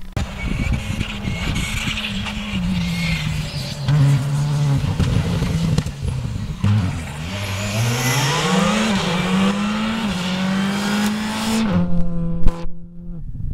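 Rally car engine at full load, its pitch climbing and dropping in steps through gear changes as the car passes at speed. About a second and a half before the end the sound cuts abruptly to a steadier, quieter engine note.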